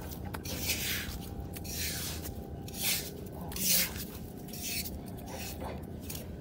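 A hand spade scraping and cutting into wet beach sand several times, each stroke a short hiss, over a steady low background noise.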